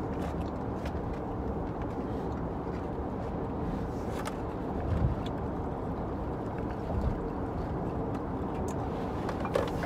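Road and engine noise inside a moving car's cabin: a steady low rumble, with a few soft thumps about halfway through.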